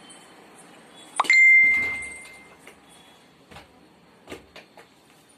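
A metal object struck once, ringing with a clear tone that fades over about a second and a half, followed by a few light clicks.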